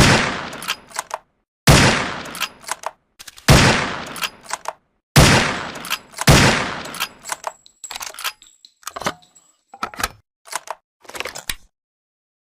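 SRP rifle sound effect: five sharp gunshots about one and a half seconds apart, each trailing off with a fading echo and a couple of clicks. After them comes a run of quieter metallic clicks lasting several seconds.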